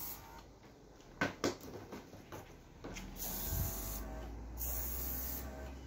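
Viper Pro X battery-powered airbrush: its small built-in compressor starts about three seconds in with a steady low hum, running only while the trigger is held, and air hisses from the nozzle in short bursts as it sprays. A couple of sharp knocks come about a second in.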